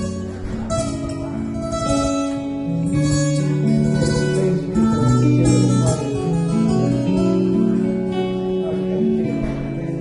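Acoustic guitar strumming a steady run of chords, the chord changing every second or so.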